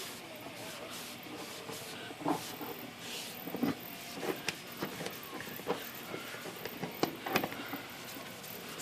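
A towel wiping and rubbing down a typewriter's rubber platen roller, a steady scrubbing noise broken by scattered light knocks.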